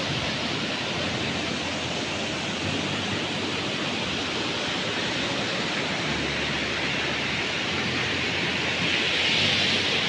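Waterfall rushing: a steady hiss of falling water with no rhythm, a little louder and brighter near the end.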